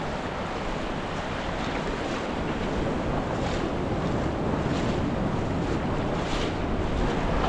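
Ocean surf breaking and washing up over the wet sand in a steady rush, with wind buffeting the microphone.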